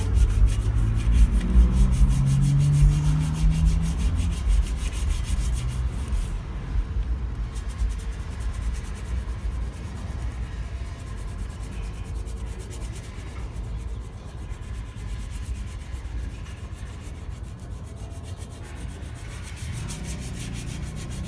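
Hand-sanding an aluminum wheel rim with 80-grit sandpaper to take down the excess of a hardened filler patch: quick back-and-forth scratching strokes of paper on metal. The strokes are louder for the first few seconds, then go on more lightly.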